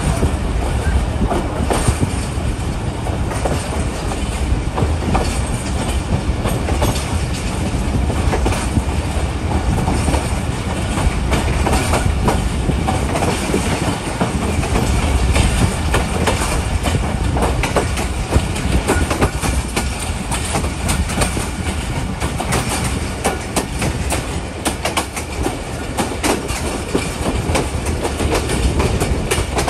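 Passenger train running slowly, heard from on board: a steady low rumble with wheels clattering over rail joints. The sharp clicks grow busier from about halfway through.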